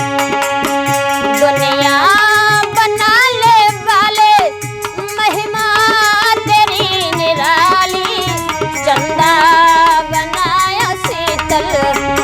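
Indian folk song: held instrumental notes and steady hand-drum strokes, with a singing voice coming in about two seconds in, bending and ornamenting its melody.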